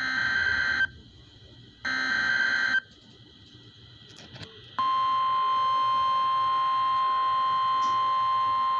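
Two short bursts of Emergency Alert System SAME header data tones from a NOAA Weather Radio, each just under a second and about a second apart. About five seconds in, the steady 1050 Hz NOAA Weather Radio warning alarm tone starts and holds, signalling that a warning is about to be read.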